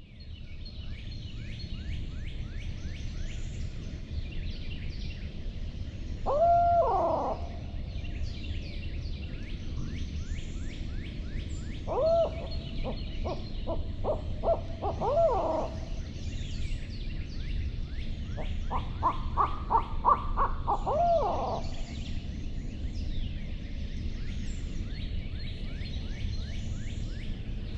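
Barred-owl hoots, three calls: a single drawn-out note about six seconds in, then two runs of quick hoots, each ending in a long note that rises and falls. A constant high chirping chorus runs behind them.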